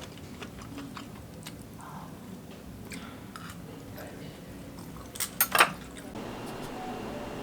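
Dishes and utensils clinking and tapping during work at a counter. There is a quick cluster of louder clinks about five seconds in, then a steady hiss starts near the end.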